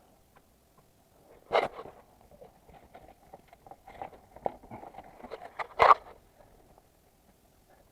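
Handling noises from hand work: irregular scraping, rustling and small clicks and knocks. There is a louder scrape about a second and a half in and another near six seconds.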